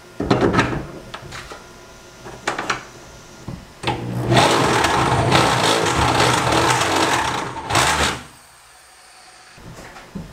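Cordless drill running for about four seconds, drilling a bolt hole into a jon boat's metal gunwale to mount a rod holder. A few knocks and clicks from handling the parts come first.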